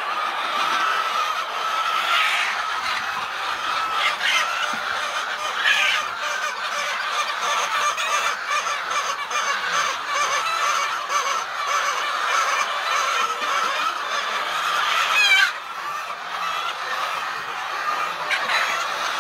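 Continuous chatter of a large flock of birds, with many overlapping calls and a few louder ones standing out. About fifteen seconds in there is a brief louder call, after which the din is a little quieter.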